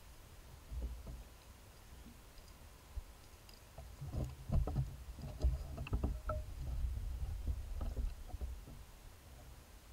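Low rumbling on a trail camera's microphone, with a cluster of soft knocks and rustles about halfway through.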